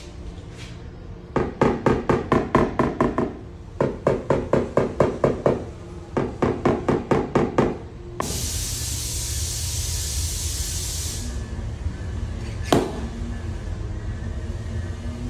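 Three quick runs of light hammer taps on a car's sheet-metal roof panel, about five taps a second with a ringing tone, typical of tapping down high spots in paintless dent repair. Then a few seconds of steady hiss and a single sharp click.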